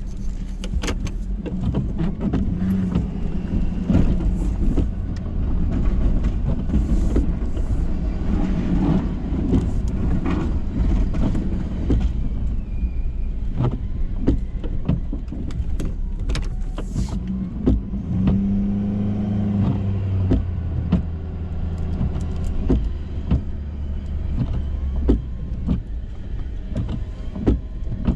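Ford F-350 pickup engine running steadily during snow plowing, with frequent short knocks and clicks. About two-thirds of the way through comes a whine lasting about two seconds.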